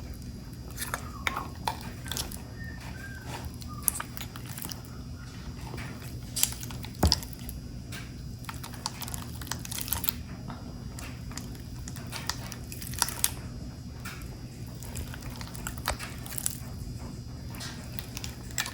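Butter and cream cheese being mixed together: irregular sticky, wet clicks and smacks, with a sharper knock about seven seconds in.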